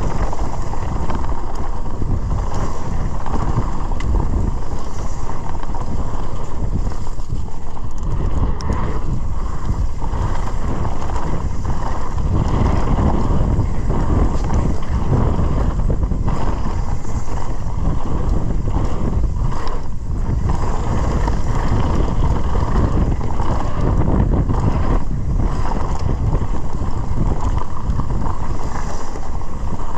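Steady wind noise on the microphone of a fast-moving mountain bike, with the rumble of its tyres over a loose gravel and dirt trail.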